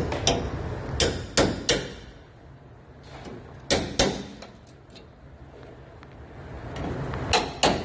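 Hammer blows on metal: about eight sharp, irregular strikes, several coming in quick pairs, while a pickup's damaged bedside panel is being worked off.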